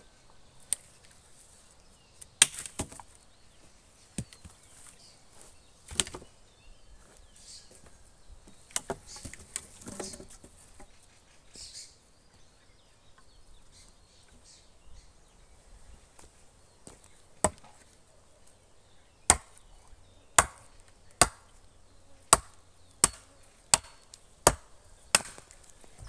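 Axe chopping wood: scattered sharp strikes with some rustling of handled poles between them, then a quick run of about eight strikes near the end.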